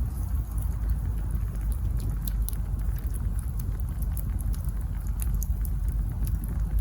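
Wood campfire burning, with many small irregular crackles and pops over a low steady rumble.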